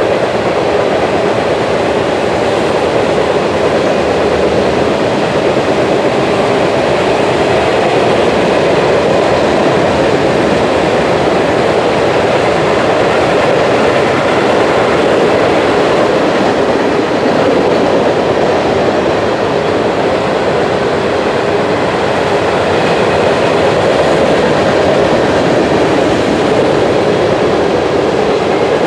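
Mixed freight train of tank cars and covered hoppers rolling steadily past: a loud, even noise of steel wheels on rail.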